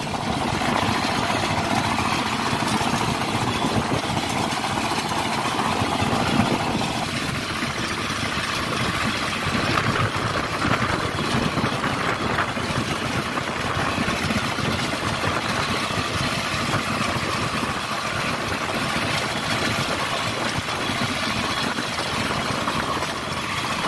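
Hand tractor's single-cylinder diesel engine running steadily as it pulls through a flooded rice paddy.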